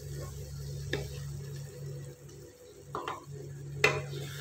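Wooden spatula stirring thick ash gourd halwa in a black kadai, with a few sharp knocks of the spatula against the pan. The loudest knock comes near the end, as the spatula is set down on the pan. A steady low hum runs underneath.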